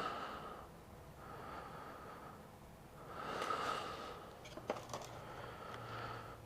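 A person's breath, a hazy exhale through the nose about three seconds in, followed by a couple of light clicks.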